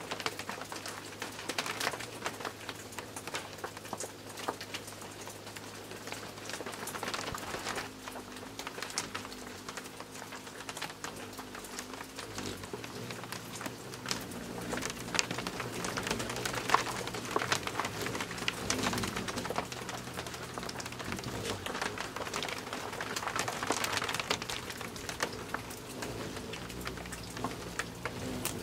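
Rain pattering and dripping, a dense scatter of small ticks, under a low hum that comes and goes as hummingbirds hover at the feeder.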